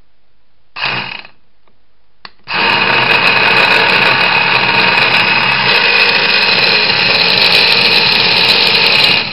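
Modified electric starter motor spinning with no load on battery power after its polarity was swapped to reverse it. A brief burst about a second in, then steady running for about seven seconds that cuts off sharply at the end.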